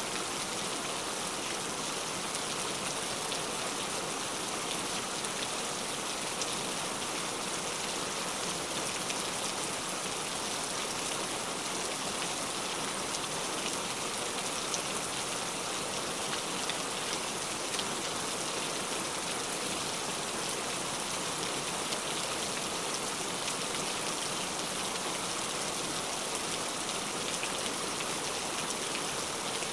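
Steady rain falling: an even, unbroken hiss of many drops hitting surfaces, with fine scattered drop ticks through it.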